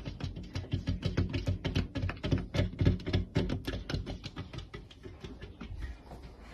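Cat pawing at a window pane: rapid, irregular taps and scratches of paw and claws on glass, several a second, growing fainter after about four seconds.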